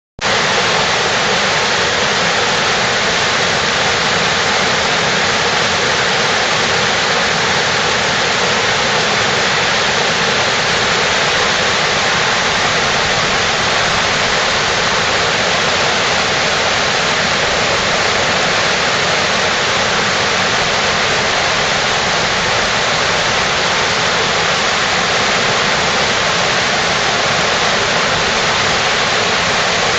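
Waterfall cascades at Diana's Baths, water pouring over rock ledges in a loud, steady rush.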